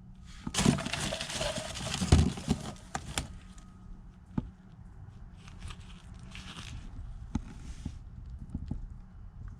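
Rustling and crinkling of paper or plastic as small items are picked through by hand, loudest for the first few seconds, with scattered light clicks and a softer rustle again about six seconds in.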